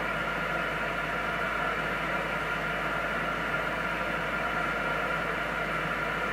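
Steady static hiss from a Galaxy DX 959 CB radio's speaker, with the squelch open on 27.285 MHz between transmissions.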